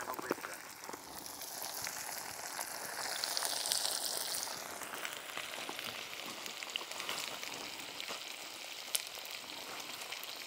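Breaded grouper pieces frying in hot oil in a pan over a wood fire: a steady sizzle that swells for a moment a few seconds in, with one sharp pop near the end.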